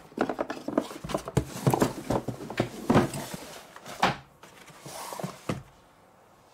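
Unpacking noise: rustling cloth and packaging with a string of knocks and clicks as a massage gun in its cloth bag and its carrying case are handled and set down. It stops about five and a half seconds in.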